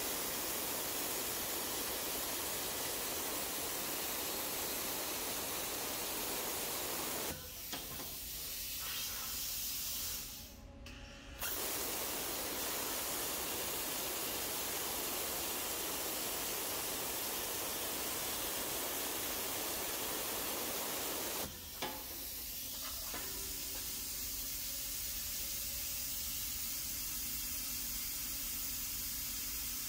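Hypertherm Powermax900 plasma arc cutter cutting steel plate: a steady hiss of the arc and compressed air. The hiss drops off about seven seconds in, resumes about four seconds later, and softens a little after a brief break a little past twenty seconds in.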